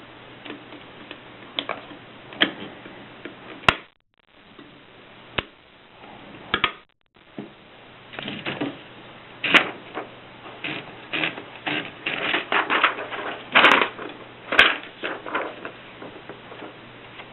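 Voss manual typewriter being typed on: scattered key strikes at first, then a fast run of keystrokes from about eight seconds in, with a few much louder clacks among them.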